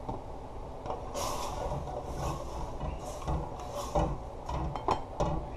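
Kitchen handling noises at the pot: soft hissing swishes in the first few seconds, then a run of sharp clicks and knocks near the end.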